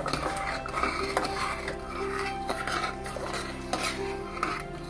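A spoon stirring thick dal in a metal pressure-cooker pot, scraping and clinking irregularly against the pot's sides and bottom.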